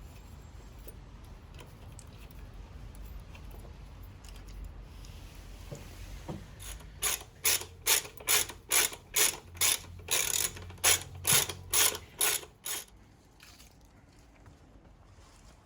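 Ratchet wrench clicking through a run of about fourteen strokes, two to three a second, for about six seconds, undoing a bolt on a motorcycle's gear shift lever.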